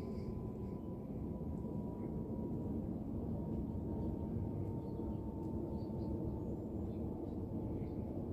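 Twin-engine widebody jet airliner passing high overhead: steady low engine noise with a faint whine that slowly drops in pitch.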